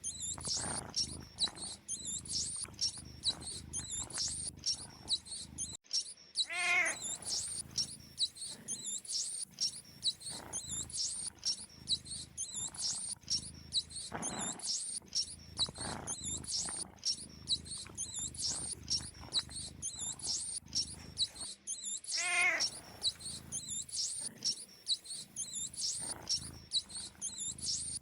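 Mice squeaking: a rapid, continuous stream of short high-pitched squeaks. A lower, wavering, falling call sounds twice, about six seconds in and again about sixteen seconds later.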